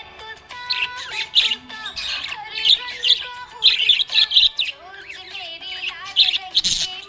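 Budgie chirping and warbling: quick bursts of high chirps over a lower, wavering warble of gliding notes.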